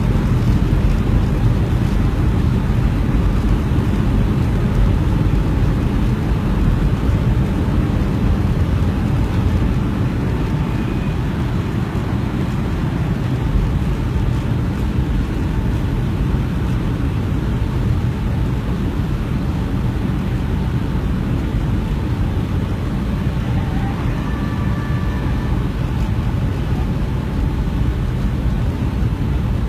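Steady roar of an airliner's engines and airflow heard inside the passenger cabin during the landing approach, dropping a little in level about ten seconds in.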